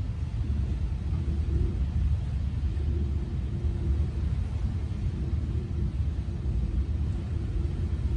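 Steady low rumble of a boat underway, its engine and hull heard from inside the cabin, with a faint hum that comes and goes.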